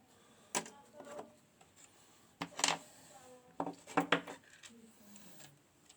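Light metallic clicks and taps of small lock pins, spools and springs being handled and set down on a hard surface, about five separate clusters.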